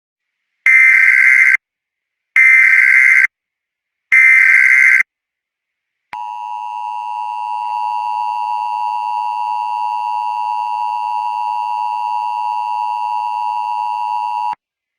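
Emergency Alert System broadcast tones: three short bursts of screechy digital header data, each under a second long and about a second apart. Then the steady two-tone attention signal sounds for about eight seconds and cuts off suddenly. Together they mark the start of an emergency alert.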